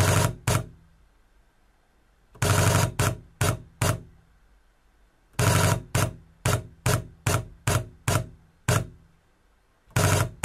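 Sony α77II (ILCA-77M2) shutter firing in continuous bursts at 12 frames per second. It comes in three runs of rapid clicks, each blurring into a near-continuous rattle for about half a second and then trailing off into separate clicks about three a second. A fourth run begins near the end.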